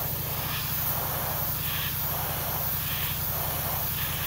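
Airbrush spraying paint: a steady hiss of air and paint through the nozzle, over a low, fast-pulsing hum.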